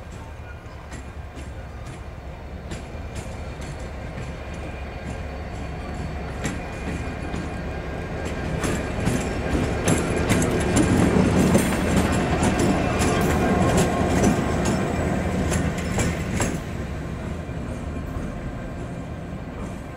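Class 69 diesel-electric locomotive with its EMD 12-710 engine, running light with no train and passing by. The sound builds, is loudest about halfway through with wheels clicking over the rail joints, then fades away.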